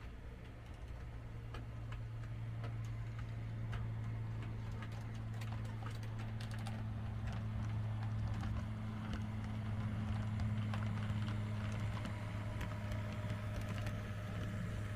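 HO-scale model train running on the layout: a steady electric motor hum with many small clicks of wheels over rail joints, growing louder as the train comes closer and easing slightly near the end.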